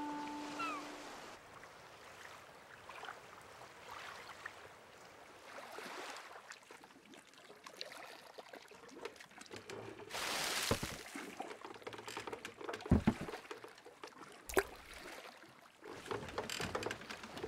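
A held music note dies away in the first second. Then come soft water sounds: sloshing, a splash about ten and a half seconds in, and two sharp knocks near the end that are the loudest sounds.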